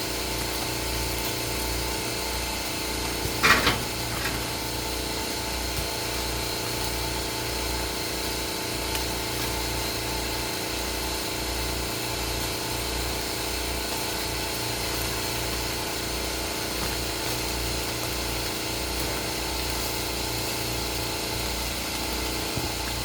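A motor running steadily, with one brief, louder noise about three and a half seconds in.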